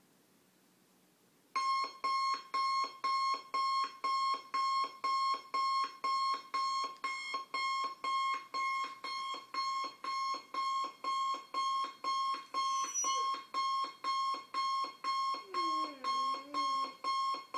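Electronic alarm clock beeping in a steady high tone, about twice a second, starting a second and a half in. Near the end a German shorthaired pointer howls along with it, its voice rising and falling.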